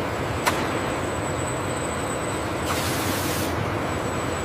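Steady running noise of factory machinery with a thin high whine, a sharp click about half a second in, and a short burst of air hiss near the middle, like a pneumatic release.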